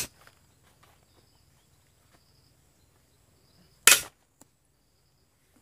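Two sharp cracks, one at the very start and one about four seconds in, each dying away quickly, with near silence between.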